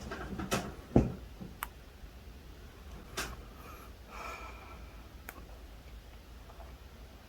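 Handling sounds: a few light clicks and taps with one louder thump about a second in, and a soft rustle a little later.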